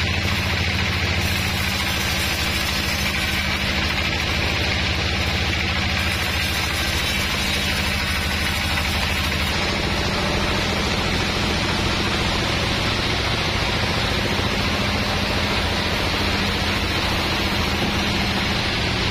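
Band sawmill running steadily, a motor hum with the hiss of the blade cutting through a large log. About halfway through, the low hum shifts as the sound moves to other sawmill machinery running.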